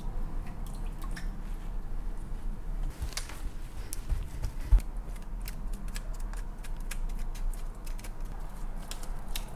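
Soft paper-towel patting, then scattered small clicks and crackles of wooden chopsticks and cooked king crab shell as meat is picked out of the knuckles. There is a single thump about halfway through, over a steady low hum.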